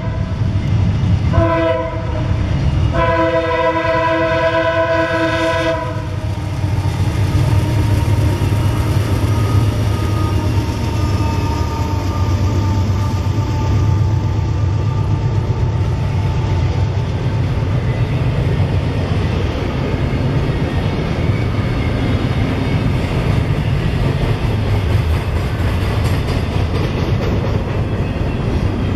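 CSX freight locomotive's horn sounding a chord: a short blast about a second and a half in, then a long one that stops about six seconds in. After it, a double-stack intermodal train rolls steadily past with a continuous low rumble of wheels on rail.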